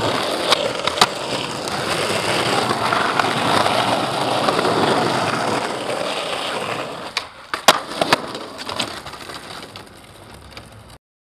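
Skateboard wheels rolling over rough asphalt with a steady rumble, and sharp clacks of the board hitting the ground. After about seven seconds the rolling fades and a few scattered clacks follow.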